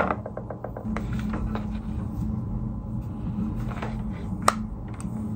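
Hair straightener being handled and clamped through hair: a sharp click, a quick run of small ticks, and another sharp click about four and a half seconds in, over a steady low hum.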